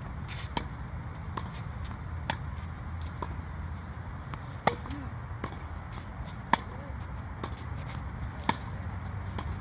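Tennis rally on a clay court: sharp pops of the ball off the rackets and fainter ball bounces, about one a second. The near player's racket strikes, roughly every two seconds, are the loudest. A low steady hum lies underneath.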